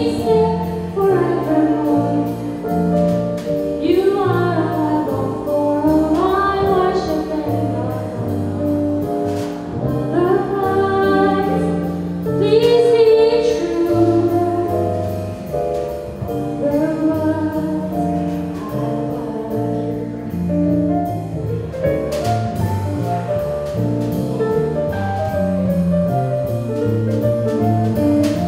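Live jazz band playing: a woman singing with a keyboard, electric bass and drums, with regular cymbal ticks above a walking bass line. Later in the stretch her voice drops out and the keyboard and rhythm section carry on.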